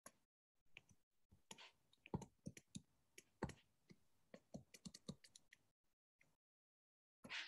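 Faint, irregular light clicks and taps, about fifteen in a quick scattered run that stops roughly two-thirds of the way through.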